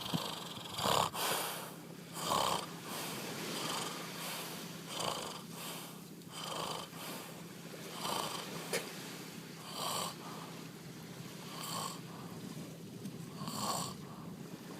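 A man snoring in his sleep, short snores repeating about every second or so, over a steady low hum.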